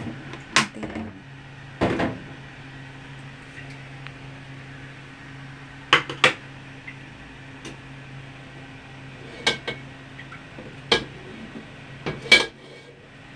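A wok knocking and clinking against the gas stove's burner grate as it is moved: about seven sharp metal clanks spread out, some in quick pairs, over a steady low hum.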